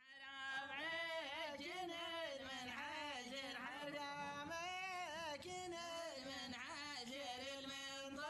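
A solo voice singing a slow, ornamented melody without accompaniment, with long held notes that bend and waver in pitch.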